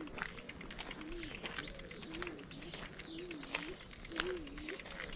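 A pigeon cooing in a regular series, about one coo a second, with small songbirds chirping over it.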